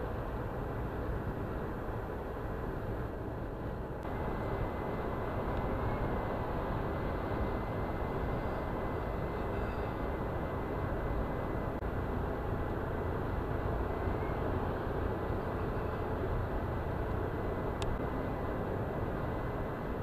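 Steady road noise heard inside a car cruising on a motorway: a low tyre and engine rumble with a faint thin high tone over it, growing slightly louder about four seconds in.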